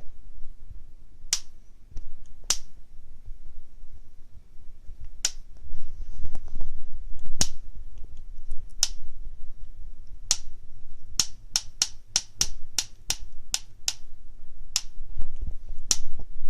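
African grey parrot clicking its beak: sharp snapping clicks, a few spaced out at first, then a quick run of about three a second in the middle, then a couple more.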